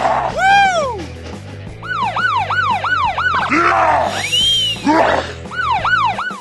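Cartoon sound effects: whistle-like tones that swoop up and back down, one long, then a quick run of about three a second, then more, over steady background music.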